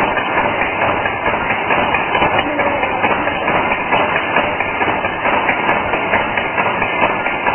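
Barbed wire making machine running, a steady, dense mechanical clatter that goes on without a break.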